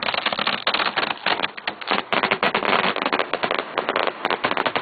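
Fireworks finale barrage: 3- to 5-inch aerial shells fired from mortars in quick succession, a dense run of sharp bangs and cracks, many a second, with no let-up.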